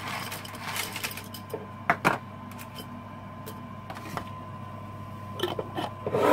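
Dried mushroom pieces rustling and clicking as they are tipped from a plastic tub into a glass jar, with two sharp clinks about two seconds in, over a steady low hum. Near the end a screw lid is fitted onto the glass jar with a cluster of knocks and scrapes.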